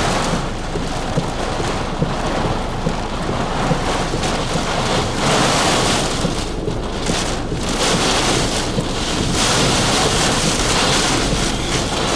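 Severe-thunderstorm wind and heavy wind-driven rain rushing against a vehicle, a loud continuous roar of noise. It eases a little about six seconds in and builds again.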